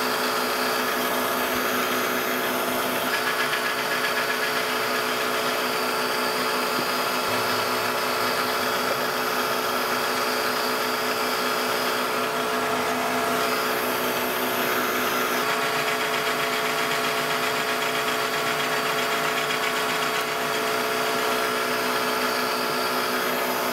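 Drill press running steadily, its twist drill boring through a metal block held in a vise: a constant hum of several tones with a hiss above it.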